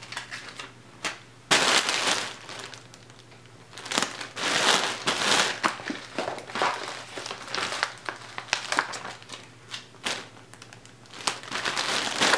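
Black plastic poly mailer crinkling in several bursts as hands press a shipping label onto it and smooth the bag down.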